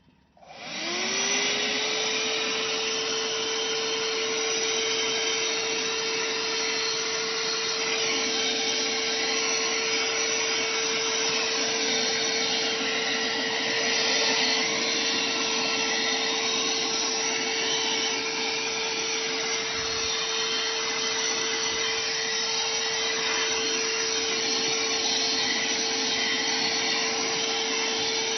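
Oshotto 2-in-1 car vacuum cleaner and tyre inflator switched on about half a second in. Its motor spins up within a second, then runs loudly and steadily with a constant whine over a rushing hiss.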